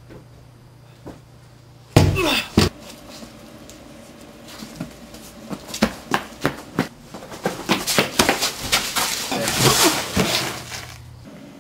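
A sudden loud crash, then a quick run of knocks, thumps and scuffling in a small concrete room, as of a struggle that ends with someone on the floor.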